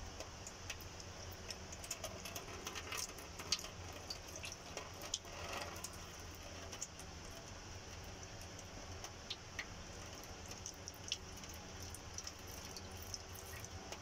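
Used automatic transmission fluid from a Ford 10R80 10-speed gearbox trickling and dripping into a drain basin, faint, with many small scattered drip ticks over a low steady hum.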